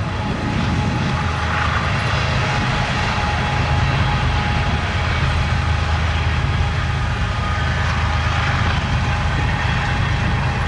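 Diesel-electric freight locomotive at the rear of the train going by and moving away: a steady low engine drone with wheel and rail noise over it.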